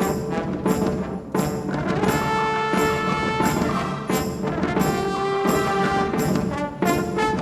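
Orchestral music led by brass, trombones and trumpets among them, with percussion: a driving rhythm of short accented chords, broadening in the middle into long held brass notes, then picking up the rhythm again near the end.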